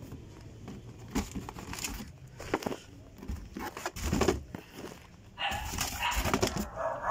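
Packaged groceries and a cardboard box being handled: a run of short knocks and rustles as boxes and a plastic tub are set down and shifted, then a louder, longer stretch of rustling noise near the end.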